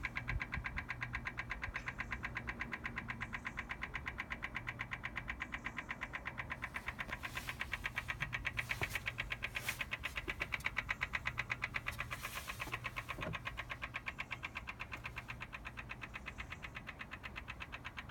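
Rapid, even clicking from a BMW M4 Competition Pack with the engine off. This is a fault noise that comes on intermittently when the car is cold, as soon as a door or the boot is opened, before the ignition is switched on.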